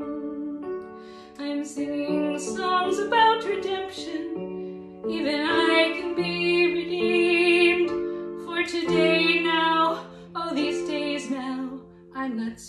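Music: a woman singing long notes with vibrato over held accompaniment chords, in phrases with short breaks between them.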